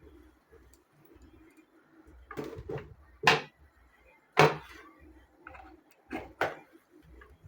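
A few sharp clicks and taps of tools and parts being handled on a workbench, the loudest about halfway through, over a faint low hum.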